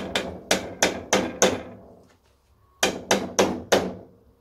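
Rubber mallet tapping a tight-fitting grease cap into a Classic Mini rear hub: about six quick taps, a pause of over a second, then four more.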